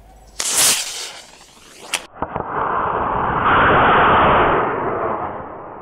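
Paired small model rocket motors firing under a rocket-powered ejection seat: a short loud burst of rocket noise, a sharp crack about two seconds in, then a long rushing hiss that swells and fades.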